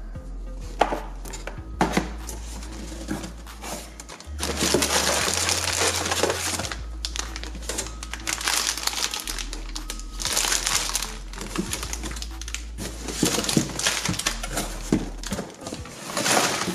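Plastic-foil blind-bag packets crinkling and rustling as a handful is picked up and moved, with cardboard of the shipping box being handled near the end. Background music plays underneath.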